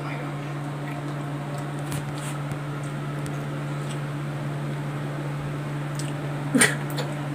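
A steady low mechanical hum, with faint wet licking and smacking of a child eating an ice cream cone; a brief louder sound about six and a half seconds in.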